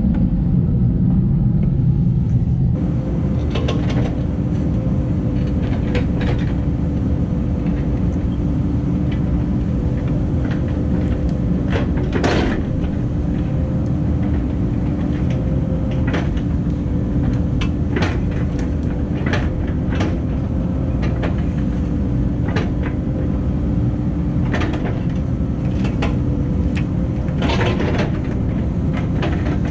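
Cat 308 excavator's diesel engine running under load with a steady hydraulic whine, while the machine digs, with scattered knocks and clanks through the work.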